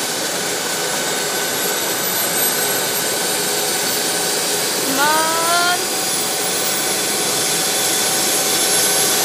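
London's Air Ambulance MD 902 Explorer helicopter running on the ground, its twin turbine engines giving a steady rushing noise with a high whine. About halfway through, a short rising call, like a voice, sounds over it.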